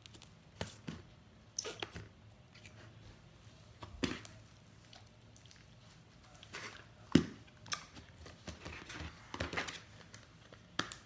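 Putty-like slime squeezed and poked in the hands, giving scattered soft squelches and sticky clicks, the sharpest about seven seconds in.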